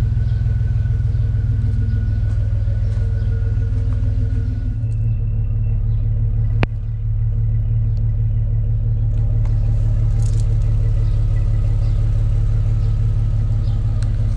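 2001 Dodge Dakota pickup's engine idling steadily, with a single sharp click about two-thirds of the way through.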